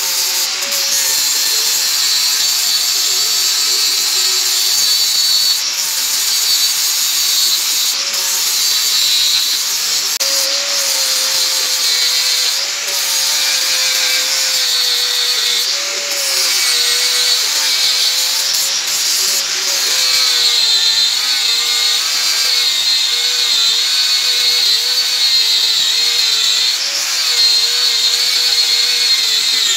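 Angle grinder grinding rust off an old steel axe head: a steady, loud grinding hiss over the motor's whine, which wavers slightly in pitch throughout.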